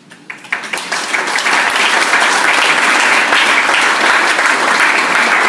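Audience applause: a few scattered claps that within about a second and a half build into steady, dense clapping.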